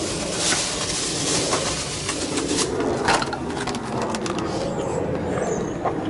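Airplane droning overhead, a steady low hum, with scattered clicks and knocks from the camera being handled.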